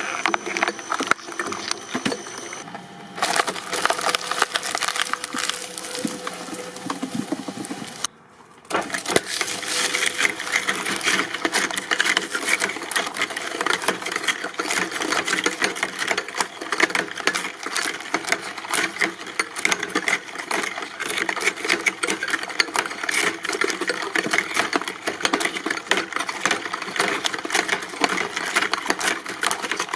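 A press machine crushing objects: a dense, continuous crackling and snapping, with an abrupt cut about three seconds in and a brief break a little after eight seconds.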